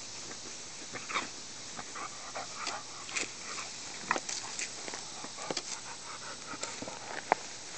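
A dog panting while she rolls on her back in long grass and then gets up, with scattered short rustles from the grass.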